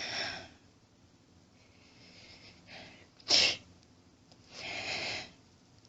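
A person sneezing: breathy in-breaths, then one short, sharp, loud sneeze about three seconds in, followed by a longer breath.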